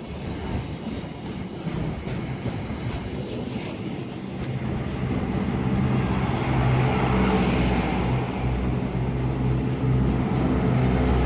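Slow-moving freight train passing: wagon wheels clicking over rail joints, then from about four seconds in a steady low diesel engine drone grows louder and holds.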